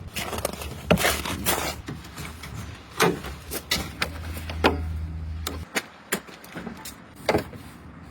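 Irregular clicks and knocks of hands working on a car, over a low steady hum that cuts off about five and a half seconds in.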